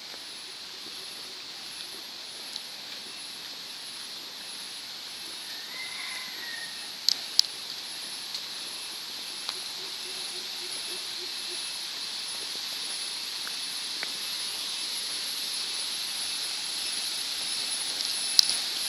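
Steady rushing of waterfall water, growing gradually louder, with a thin high steady whine above it and two sharp clicks about seven seconds in.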